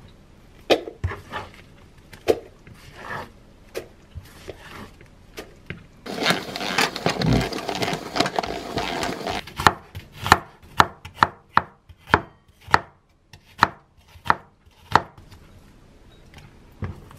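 Chef's knife cutting garlic chives on a wooden cutting board, a few scattered knocks. Then a hand-operated plastic bowl gadget whirs for about three seconds. Then a run of sharp, regular knife strikes on the board, about two a second, slicing onion.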